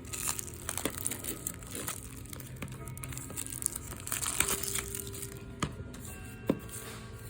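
A plastic Blu-ray case and its packaging being handled and opened, crinkling with scattered clicks and a few sharper snaps near the end. Faint music plays under it.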